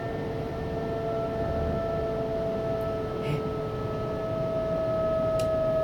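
Electric traction whine of a Siemens Desiro HC (class 462) multiple unit heard inside the train: several steady tones over a low running rumble, drifting slowly lower in pitch.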